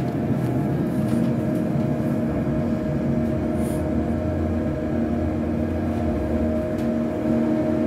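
Boeing 737-800 flight simulator's cockpit sound: a steady jet-engine rumble and hum at climb power just after take-off. A deeper rumble swells for a few seconds midway.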